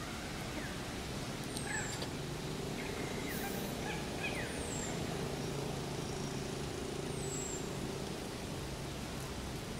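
Forest ambience: a steady hiss with a high, short falling bird call repeated about every three seconds and a few brief chirps in the first half. A faint low hum runs through the middle.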